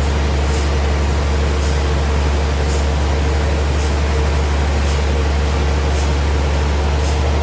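Sawmill machinery running steadily: a loud, constant low drone with a faint hiss that repeats about once a second.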